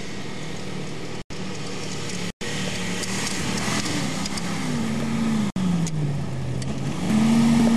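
Range Rover Classic engine revving up and down under load as it crawls up a rutted sand track. Its note rises and falls and gets louder near the end. The sound cuts out for an instant three times.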